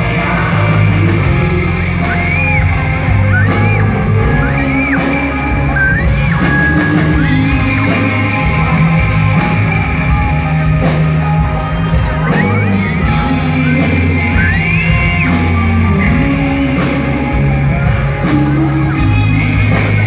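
Live rock band playing loud through a concert PA, with a male lead vocal over drums and bass. Shouts and whoops from the audience come over the music.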